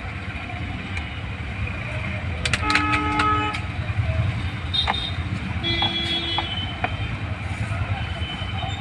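Road traffic rumbling, with a vehicle horn sounding for under a second about three seconds in and a second, shorter horn toot around six seconds in.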